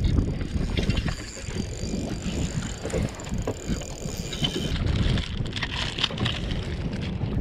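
Wind buffeting the camera microphone on an open boat, with handling clicks and a clear plastic bait bag crinkling for a couple of seconds past the middle.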